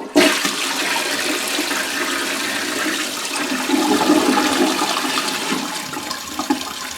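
Crane toilet flushing through a newly fitted, adjustable Fluidmaster 502 flapper: a steady rush of tank water into the bowl that eases off slightly near the end. It is a test flush after the flapper's dial was turned down to cure double flushing.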